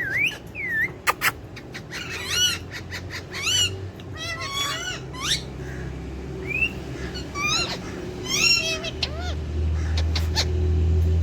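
Pet parakeets chattering in short, pitched squawks and chirps, with a few sharp clicks. A low steady rumble comes in near the end.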